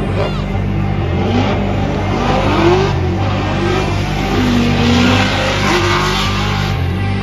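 Drift cars' engines revving up and down, over and over, with a swell of tyre noise in the middle, under background music with a steady low beat.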